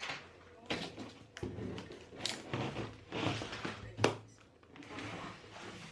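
Utility knife slicing through the packing tape on a cardboard box in a series of scraping strokes, then the cardboard flaps being pulled open and rustling, with a sharp knock about four seconds in.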